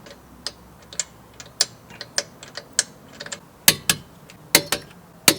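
Ratchet wrench clicking in short strokes, sharp clicks about every half second that grow louder past the middle, as bolts are run in while a rear brake pad change is finished.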